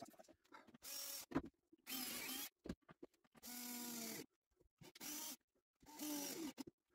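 Cordless drill run in five short bursts, driving screws into a softwood crate frame; one run carries a steady motor whine.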